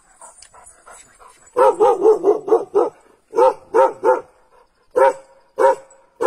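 A dog barking repeatedly: a quick run of about six barks, then single barks every half second to a second.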